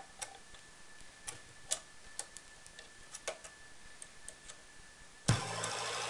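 Patch cables being pulled and plugged on a small modular synth: the synth's output is cut, leaving scattered small clicks of jacks and handling over a faint steady whine. About five seconds in, a loud jack click brings the buzzy, humming output of the home-made doorbell-chip module back in, heard through a camera microphone.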